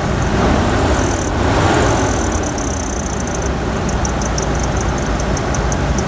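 GMC 2.8-litre inline-four engine running at idle, with a short rise and fall in pitch near the start.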